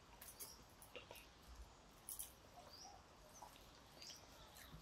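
Near silence: faint, scattered soft clicks and smacks of people eating rice by hand from steel plates, the loudest a little past two seconds in, with a few faint high chirps.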